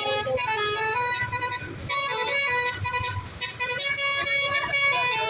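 A bus's basuri telolet multi-tone horn playing a melody of stepped horn notes, breaking off briefly twice, over the low sound of the bus engine running.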